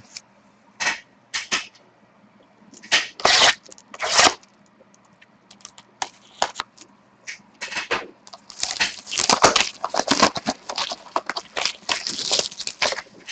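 Plastic shrink-wrap being torn and crinkled off a sealed box of trading cards, with the cardboard lid being worked open: a run of short tearing, crackling bursts, sparse at first and coming thick and fast in the second half.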